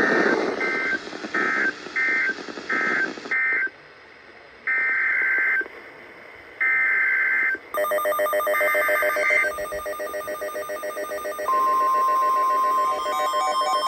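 Emergency Alert System digital data tones: a run of short two-tone warbling bursts, then three one-second bursts a second apart, the pattern of a SAME alert header. Layered electronic music comes in about eight seconds in, and near the end the steady single-pitch NOAA Weather Radio warning alarm tone starts.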